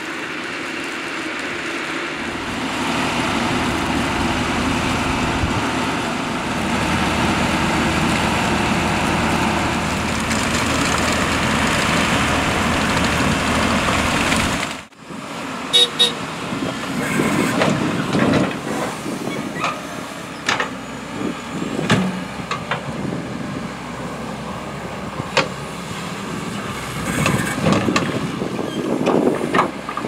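Fendt 930 Vario TMS tractor with its MAN engine running steadily while its Franzosi manure spreader flings sludge. About halfway the sound cuts off and turns to a Hyundai excavator loading sludge into the spreader: engine running with a string of sharp clanks and knocks from the bucket and the spreader body.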